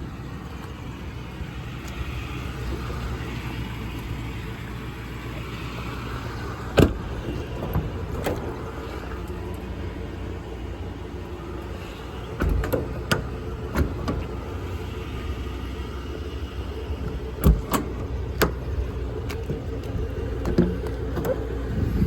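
Ford F550's 6.8-liter V10 engine idling steadily. Several sharp clicks and knocks come at irregular intervals.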